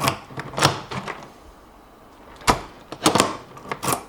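Clicks and knocks of an aluminium motorcycle top box being handled: its latch, lock and lid. There are a few light clicks at first, then a sharper knock about two and a half seconds in and a quick cluster of clicks near the end.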